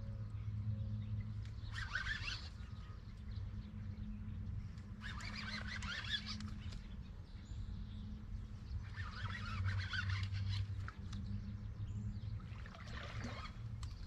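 Fishing reel cranked in four short spells of scratchy whirring, a few seconds apart, while a hooked fish is pumped in: the pump-and-reel stage of the fight. A steady low hum runs underneath.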